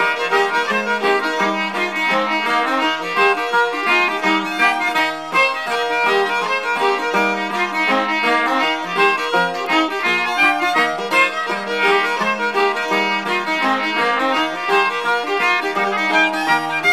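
Background instrumental music: a quick fiddle tune of many short notes, playing steadily.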